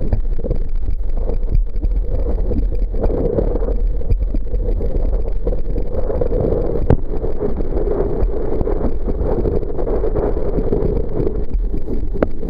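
Wind buffeting the built-in microphone of a kite-control-bar-mounted Kodak Playsport camera while kitesurfing: a loud, continuous rushing rumble that rises and falls in gusts, with a couple of sharp knocks.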